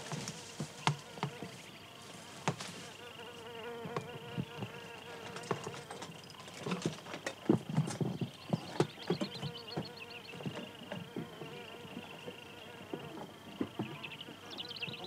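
Footsteps, scuffs and scrapes of climbers clambering over limestone rock: a scattered run of clicks and knocks, busiest around the middle. Underneath is a steady insect drone with a thin high tone.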